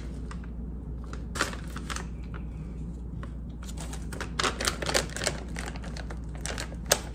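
Crinkling and rustling of a plastic stand-up snack pouch of chocolate crispy rice minis being handled and reached into, in several clusters of short crackles.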